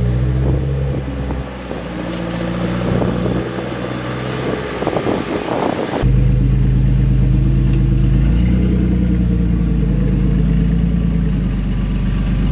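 Rock-crawler buggy engines working at low speed over rocks, the pitch rising and falling with the throttle. About six seconds in the sound cuts abruptly to a second buggy's engine, a Toyota 4Runner-based buggy, with a deeper, steadier note.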